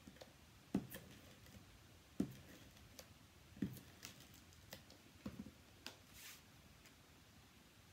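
Light, scattered taps and clicks of cardstock being handled while an adhesive tape runner lays strips of tape on it, with a brief soft scrape of paper near the end.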